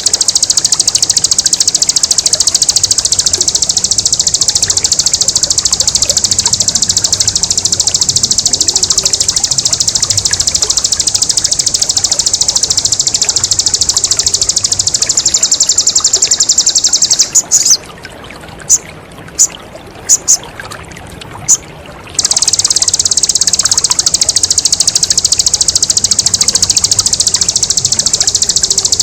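A songbird sings a continuous, very rapid, high-pitched 'ngebren' trill in the style of the bar-winged prinia (ciblek), over a bed of trickling water. Around 17 seconds in the trill breaks off into a few short sharp notes, then it resumes about 22 seconds in.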